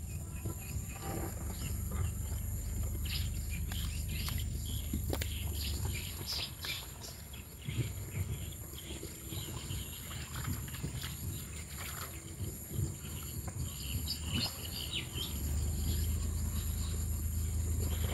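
Birds chirping in short, scattered calls over a steady high-pitched insect drone, with a constant low rumble underneath.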